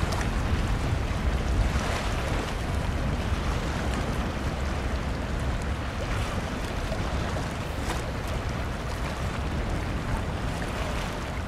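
Wind buffeting the microphone, a steady uneven rumble, over the wash of choppy sea water with a few faint splashes.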